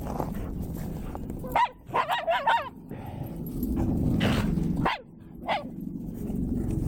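Dogs at play vocalizing: a quick run of short, wavering yips and whines in the first half, then two single barks later on, over a low steady rumble.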